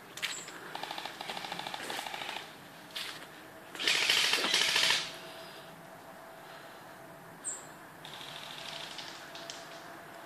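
Airsoft guns firing rapid full-auto bursts, each a fast rattle of shots. There is a longer burst at the start, a much louder and closer burst about four seconds in, and a fainter burst near the end.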